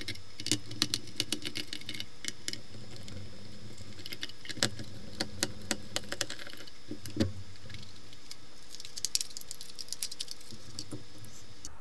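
Handling noise from taking apart a plastic multimeter case: a small screwdriver working self-tapping screws out, then the two case halves pulled apart. It comes as a scattering of light clicks, taps and rattles in irregular clusters.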